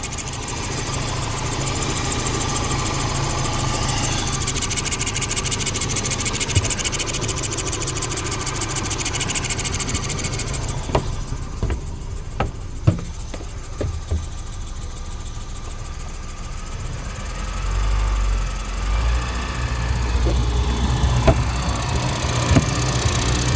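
Suzuki DF115 four-stroke outboard engine running with a loud hiss on top of the engine sound, from the corroded flywheel magnet cover rubbing against the stator. About halfway through the hiss fades, a few sharp clicks follow, and then a heavier low rumble of the engine takes over.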